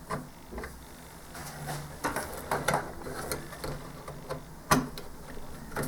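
Small plastic clicks and rattles of a cable connector being handled and pushed onto a pin header on an Amiga A1200 circuit board, with one sharper click near the end.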